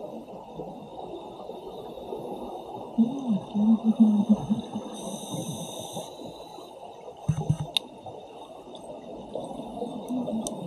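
Underwater sound of scuba diving: a steady muffled underwater rush, with low burbling bursts of a diver's regulator exhaust bubbles about three seconds in and again about seven seconds in, and a brief hiss like a regulator inhale about five seconds in.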